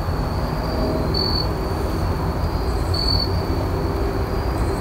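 Insects droning on one high steady note that swells to a louder pulse about every two seconds, over a steady low rumble.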